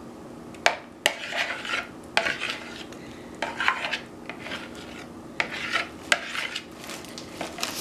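Metal spoon scraping and tapping against a plastic mixing bowl while scooping out a thick creamy mixture. It comes as a series of sharp taps and short scrapes at uneven intervals.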